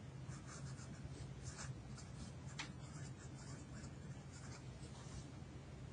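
Marker pen writing on a paper notepad in quick, short scratchy strokes. A faint steady low hum runs underneath.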